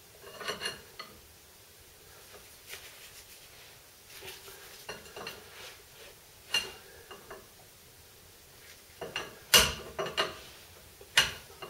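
Steel hand tools clinking and scraping against the front hub nut and locking washer of a VW T25/T3 bus as the wheel bearing nut is backed off a little at a time to set the bearing play. The taps are scattered and irregular, with the loudest, sharpest clinks in a cluster near the end.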